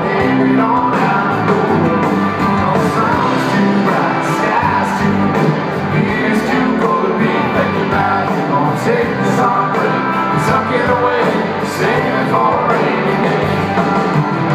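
Live country-rock band playing through a PA: a male lead vocal over electric guitars, bass and drums, heard from within the audience.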